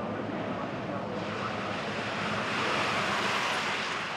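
A Mazda MX-5 (Roadster) race car passing on the circuit: engine and tyre noise swelling to its loudest about three seconds in, then easing off.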